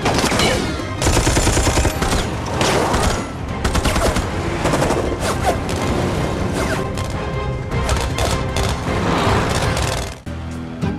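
Action-film soundtrack: repeated bursts of gunfire layered over a music score, with a brief dip in loudness near the end.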